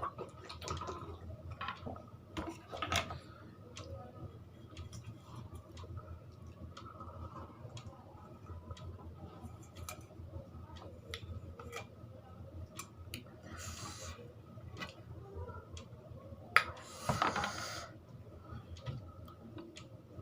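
A person eating: small wet mouth clicks and chewing, with light knocks of dishes, over a steady low hum. Two brief louder rushing noises come about fourteen and seventeen seconds in.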